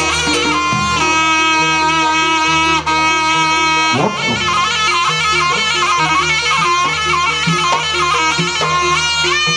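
Live jaranan Banyuwangi accompaniment: a reedy shawm (slompret) plays a long held, ornamented melody over a steady low drone and repeating percussion.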